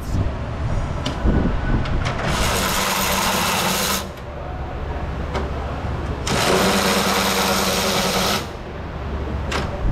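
Cordless power ratchet running in two bursts of about two seconds each, spinning out the fan-shroud bolts.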